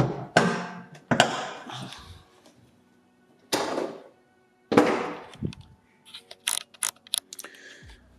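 Several loud thumps and knocks with short ringing tails, then a quick run of sharp clicks, over faint background music.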